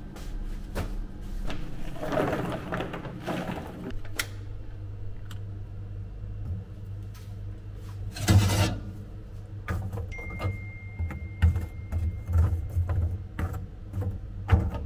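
Kitchen prep work: a steady low machine hum under scattered knocks and clatter, with one loud rushing burst about eight seconds in.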